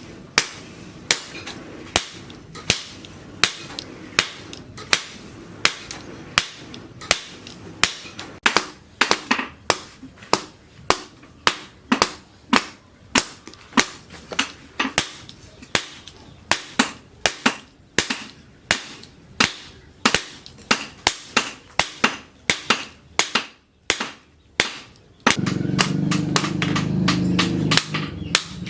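Hand hammer striking hot leaf-spring steel on an anvil in a steady rhythm of sharp, ringing blows. The blows come about one and a half a second at first and quicken to two or three a second about a third of the way in. Near the end a steady low rumble starts up under the strikes.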